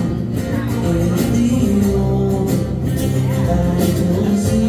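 Live band playing a song with guitar and vocals over a steady beat.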